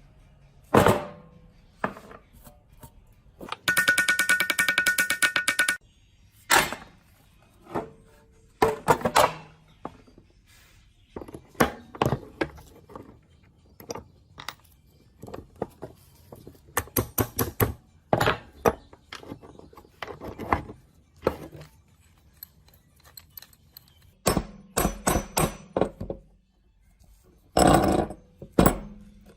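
Metal machine parts being handled and struck with hand tools: an irregular series of clanks and knocks, some in quick runs. About four seconds in, a short buzzing rattle lasts roughly two seconds.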